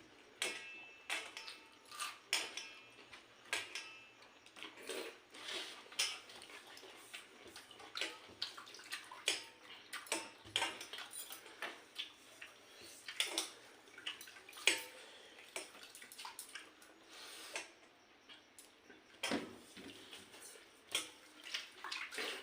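Hands mixing and scooping water-soaked rice (pakhala) from a dish, with wet splashing and clinks of dishes and cutlery in a string of short, irregular sounds.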